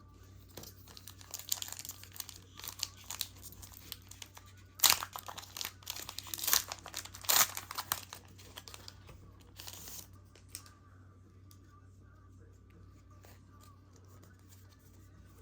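Foil wrapper of a Pokémon card booster pack crinkling and tearing as it is opened, the crackling loudest about five to eight seconds in and stopping after about ten seconds.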